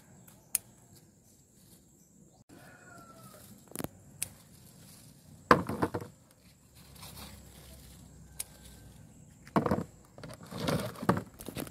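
Maxixe vines and leaves rustling and crackling as the fruit is picked by hand: a few short rustles about halfway in and again near the end, with scattered sharp clicks.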